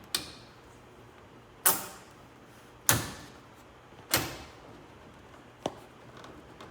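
Four sharp knocks about a second or so apart, each with a short ringing tail, then one lighter click: plastic interior trim being knocked into its clips in a car cabin.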